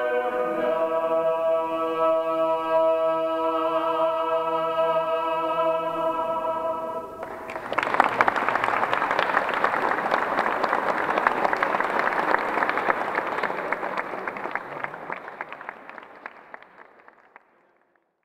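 Male a cappella vocal group in a reverberant stone church holding a final chord, which ends about seven seconds in; the audience then applauds, and the applause fades out.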